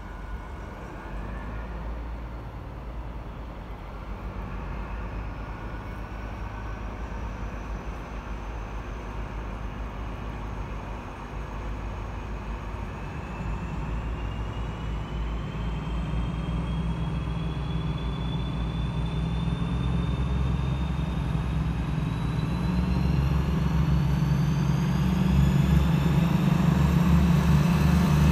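Two DB class 218 diesel-hydraulic locomotives working in multiple, pulling an Intercity train as they accelerate: a deep engine drone that grows steadily louder as they approach. A high whine climbs slowly in pitch.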